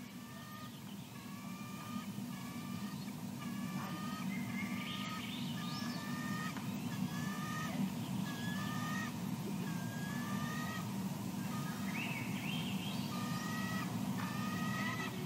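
Birds calling outdoors: short, slightly rising notes repeated about once a second, over a steady low rumble.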